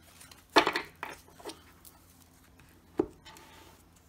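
Oversized tarot deck being overhand-shuffled: a quick flurry of cards slapping together about half a second in, a few lighter card clicks, then one sharp knock about three seconds in as the deck is set down square on a wooden table.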